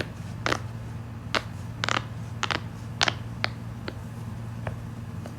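Jumbo silicone pop-it fidget toy having its bubbles pressed: a string of sharp popping clicks at an uneven pace, growing softer over the last couple of seconds.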